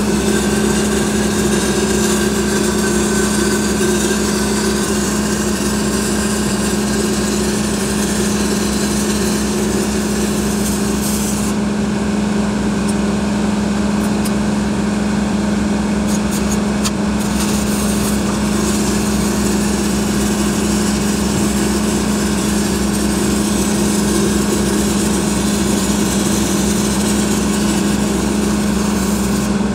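Stick-welding arc crackling steadily as a 6010 root bead is run on 6-inch schedule 80 pipe, over the steady hum of the engine-driven welding machine running under load. It stops right at the end.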